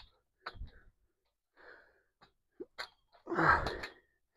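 A couple of light knocks, then about three and a half seconds in a loud, short, half-second burst of a man's breath and voice, sneeze- or grunt-like.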